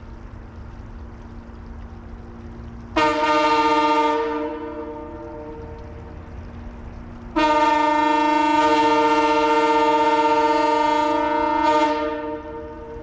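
Multi-chime locomotive air horn sounding a chord: a short blast about three seconds in, then a long blast of about four seconds, each dying away at the end. A fainter steady hum runs underneath between the blasts.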